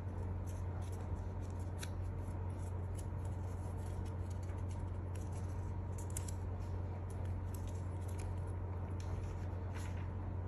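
Paper being handled, folded and pressed by hand: light rustles and small crackles at irregular moments, over a steady low hum.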